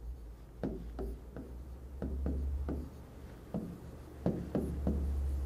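Pen tip tapping and writing on an interactive whiteboard screen: a string of short clicks at uneven intervals, over a low steady hum.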